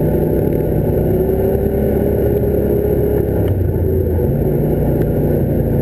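Quad bike (ATV) engine running steadily under way, its pitch easing up slightly about a second in, with water splashing as the quads drive through a flooded road.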